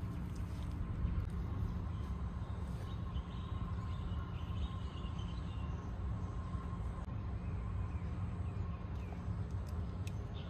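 Steady outdoor background noise: a low rumble with a thin, steady hum, and a few faint high chirps near the middle.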